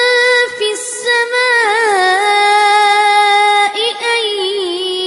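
Quran recitation in melodic murottal style by a single high voice, drawing out long held notes with small ornamental turns and stepping down in pitch about two seconds in.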